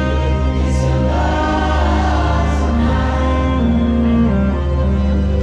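Dance music: a group of voices singing long held notes over a steady, heavy bass.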